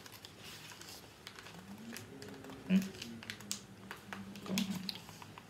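Quiet clicks and rustles of hands handling the pages of a book, with a faint low murmuring voice under them and a short louder vocal sound near the middle.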